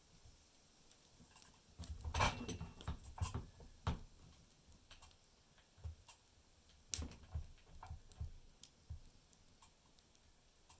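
Scattered clicks, clinks and knocks of hands working a new chain onto a chainsaw's bar and handling the saw. The loudest flurry comes about two seconds in, with single knocks now and then after it.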